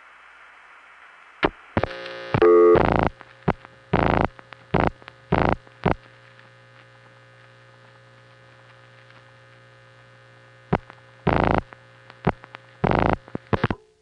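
Telephone line audio from a 1976 long-distance call: faint line hiss, then about one and a half seconds in a click and a steady low hum on the circuit, broken by a series of loud crackling bursts and clicks. The line cuts off suddenly at the very end.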